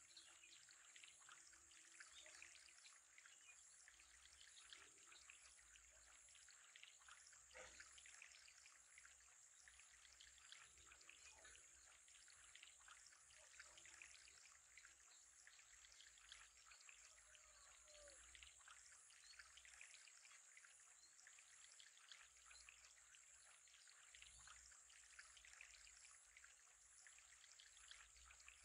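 Faint, steady trickling of aquarium water, a fine continuous patter with a low hum coming and going underneath.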